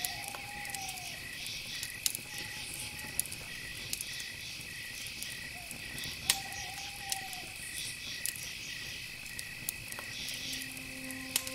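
Steady cricket-like insect chirping, a high pulsing trill repeating a few times a second, with a few faint sharp clicks and two soft, slowly arching tones.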